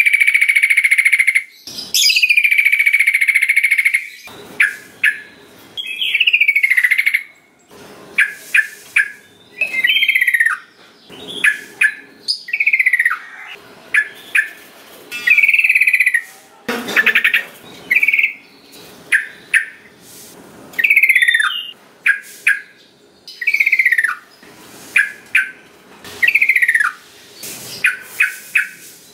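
Yellow-vented bulbul (trucukan) singing loudly, repeating short bubbly phrases of falling whistled notes every second or two, with quick chattering notes between them.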